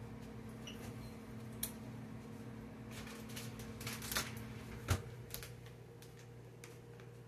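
Scattered light clicks and taps of kitchen items being handled out of sight, with a louder knock about five seconds in, over a steady low electrical hum.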